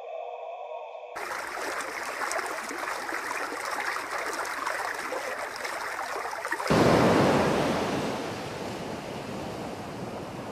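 A brief wavering tone cuts off about a second in, giving way to the steady rush of a shallow stream. About seven seconds in, louder and deeper sea surf washing over rocks takes over, swelling and then easing.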